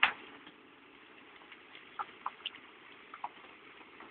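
A bucketload of broken stone (slig) dumped from an excavator bucket crashes into a steel dump trailer, one short loud crash at the start. A few scattered clicks of stones settling and rolling follow about two to three seconds in.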